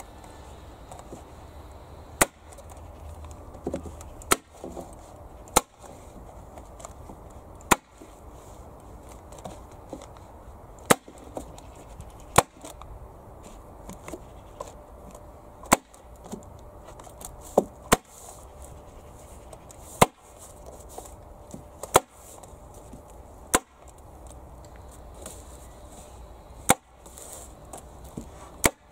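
Hand staple gun firing staples through a damp course plastic liner into a wooden planter box: sharp single snaps, about fourteen, one every one to three seconds.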